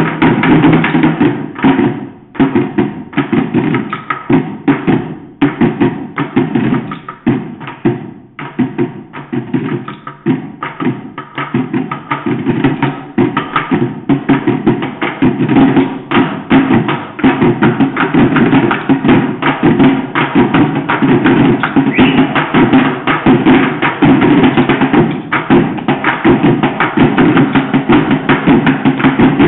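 Percussion ensemble drumming with sticks on buckets: fast, dense interlocking rhythms. The playing thins out briefly about two seconds in and again around eight seconds, then builds to a denser, steadier pattern.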